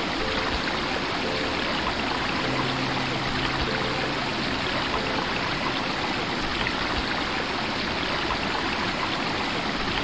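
Rocky stream running steadily over and around boulders, a continuous rush of water.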